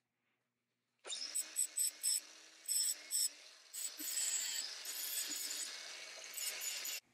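Angle grinder disc grinding the steel end of a threaded rod. There are several short touches, then a longer continuous grind that stops abruptly.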